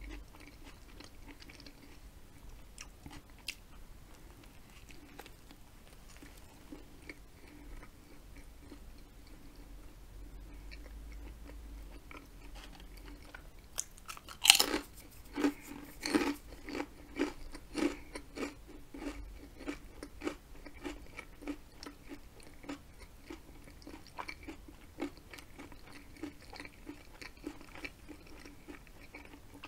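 Close-miked eating of a sub sandwich and potato chips: soft, quiet chewing at first, then about halfway a loud crunchy bite, followed by steady crunching chews about once or twice a second.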